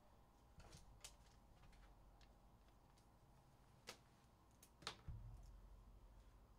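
Near silence: faint room tone with a steady low hum, broken by a few faint clicks about a second in, near four seconds and again near five seconds.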